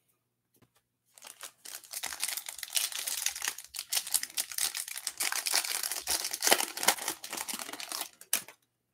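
Foil wrapper of a Panini Select UFC trading card pack being torn open and crinkled by hand: a dense run of sharp crackling and tearing from about a second in, stopping shortly before the end.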